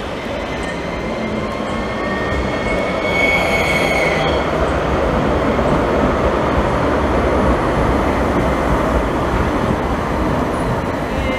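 Articulated electric tram running past at close range, a steady rumble of steel wheels on rails that swells as it goes by. A brief high-pitched wheel squeal starts about two and a half seconds in and ends about a second and a half later.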